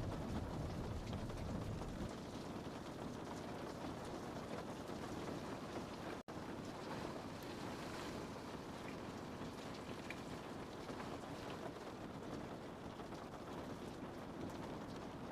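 Rain falling steadily on window glass, an even hiss with a low rumble that eases about two seconds in. The sound cuts out for a split second about six seconds in.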